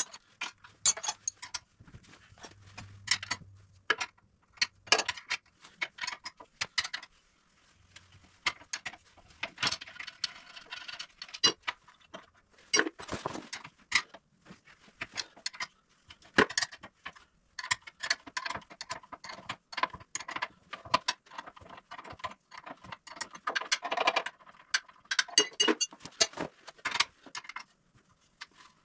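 Metal hand tools clicking and clinking against the UTV's front-end hardware, with several short runs of rapid clicking from a socket ratchet as bolts are worked.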